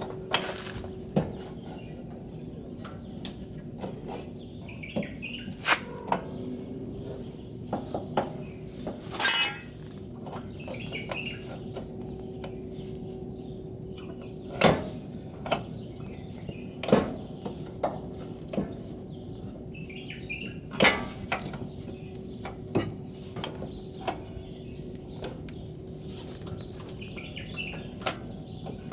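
Scattered metallic knocks and clinks of hand work at a car's front wheel hub as the CV joint axle is worked free of the hub, with a short rattle about nine seconds in. Birds chirp faintly, over a faint steady hum.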